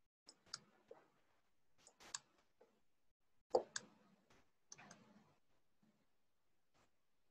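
Scattered faint clicks of computer keys and a mouse or trackpad being pressed while code is edited, about ten taps in irregular groups, the loudest about three and a half seconds in.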